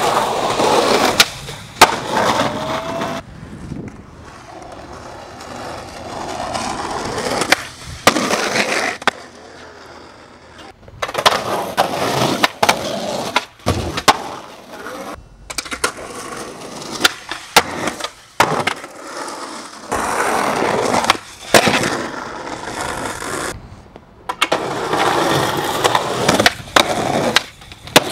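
Skateboard wheels rolling on pavement, broken again and again by sharp clacks and slaps of tricks and landings.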